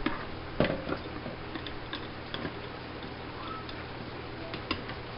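Irregular light clicks and taps of a metal kitchen utensil against a metal baking tray as sauce-coated ribs are lifted and turned, over a faint steady low hum.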